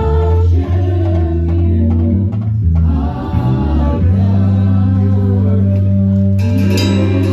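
Music with singing over heavy, sustained bass notes, typical of a band sound check. Cymbal or percussion hits come in near the end.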